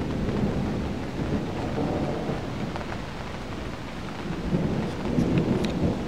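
Thunder rumbling after a lightning flash, over steady rain, the rumble swelling again about four and a half seconds in.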